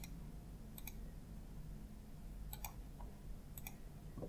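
Computer mouse clicking: about four faint, sharp clicks spaced unevenly, over a faint low room hum.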